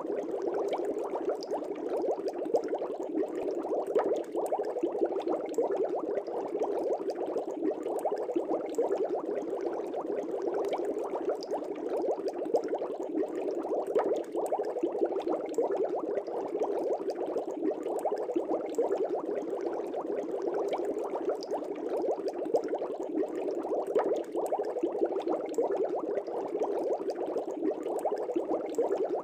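Air bubbles rising and bursting in a fish tank: a steady, dense bubbling with many small pops.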